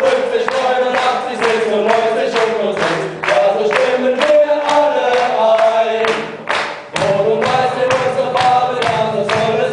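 Background music: a song with sung, choir-like vocals over a steady beat, briefly dropping away about three seconds in and again near the seven-second mark.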